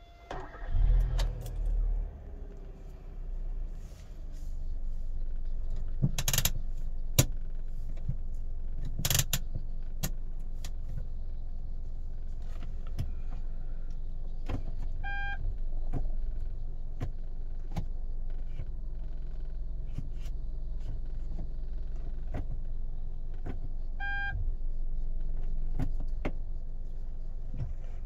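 Hyundai Avante 1.6 LPG four-cylinder engine cranking and catching about a second in, then settling to a steady idle at about 1000 rpm. A few sharp clicks and two short beeps sound over the idle.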